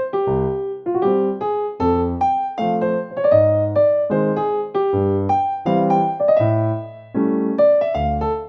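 Background music: a piano, or electric piano, playing a steady run of notes.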